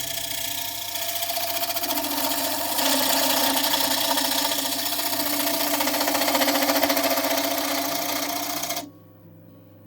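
Record Power Coronet Regent lathe spinning an oak bowl with a tool held against the wood, a hissing noise with a fast, even rattle. It gets louder about three seconds in and cuts off suddenly near the end.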